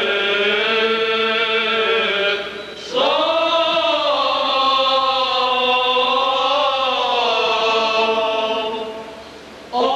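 Armenian church choir chanting a liturgical hymn in long held phrases, each note drawn out and sliding slowly in pitch. The singing dips briefly between phrases about two and a half seconds in and again near the end, then starts a new phrase.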